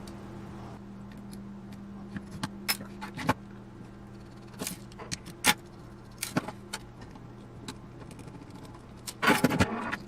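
Metal click-stop (detent) mechanism inside an old Marconi radio control box being turned by hand, giving sharp irregular clicks with a quick flurry of louder clicks near the end, over a faint steady hum.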